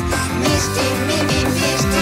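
Upbeat opening theme music of a children's cartoon, with a steady beat.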